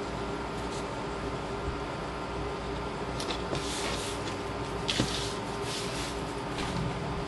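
Paper being handled on a table: cardstock pieces pressed together and slid across the page, with soft rustles and a brief tap about five seconds in, over a steady hum.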